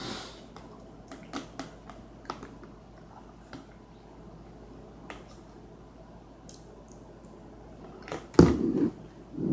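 Someone eating: scattered faint clicks and soft wet chewing sounds, a few seconds apart. Near the end comes a louder voiced sound.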